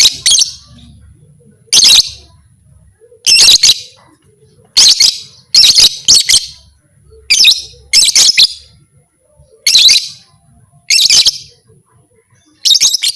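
Lovebird giving loud, shrill chirping bursts, about ten short harsh calls spaced a second or so apart, some in quick pairs.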